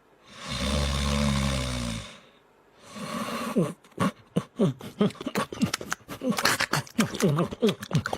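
A dog vocalising: a long, low, rasping growl-like grumble, a shorter one about three seconds in, then a quick run of short calls that each fall in pitch.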